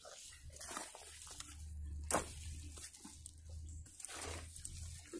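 A hoe scraping and slapping into a heap of wet clay mud, in a few short strokes with the sharpest about two seconds in.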